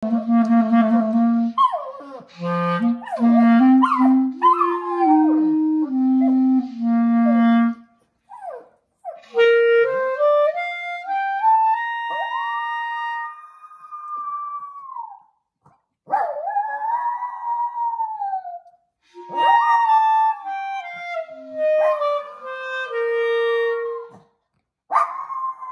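A papillon howling along to a clarinet: the clarinet plays runs of held notes, and the dog joins in with long rising-and-falling howls, in several phrases with short pauses between.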